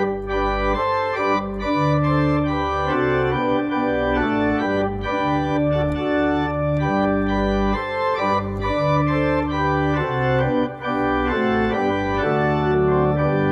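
Content Celeste 340R digital church organ playing a hymn in fast-moving chords on a full principal chorus: 16-foot pedal, 8-, 4- and 2-foot principals and the mixtures. The mixtures add high pitches on top of a deep pedal bass.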